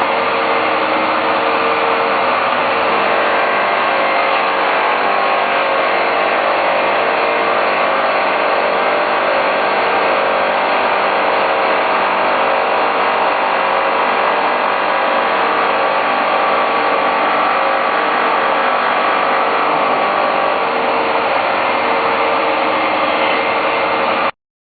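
Bowl cleaning and polishing machine running steadily, a continuous motor hum with several steady tones under a noisy rush of brushing. It cuts off suddenly near the end.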